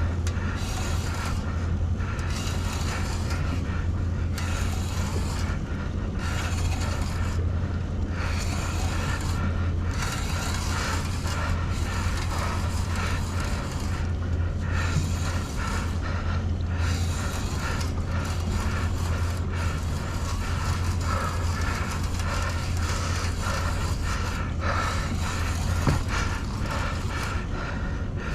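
A fishing reel being cranked to bring in a hooked striped bass: a rapid run of gear clicking, broken by short pauses every second or two. A steady low hum runs beneath it.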